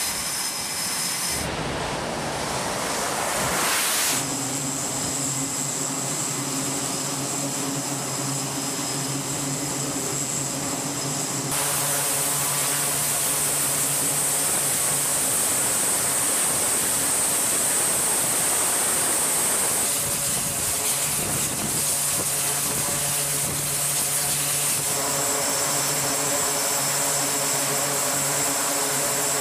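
Aircraft engine noise on a carrier flight deck: first a jet's steady hiss, then the two turboprop engines of an E-2 Hawkeye running, a steady propeller drone under a strong hiss. The sound changes abruptly several times.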